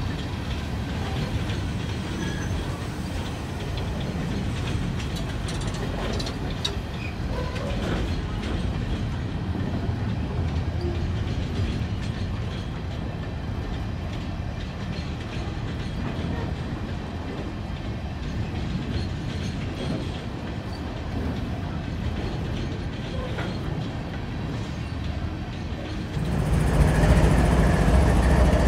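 Freight train of covered hopper cars rolling past, a steady rumble of steel wheels on the rails. About 26 seconds in, a louder, deeper diesel engine sound comes in with steady tones over it as a GE ES44AC locomotive draws alongside.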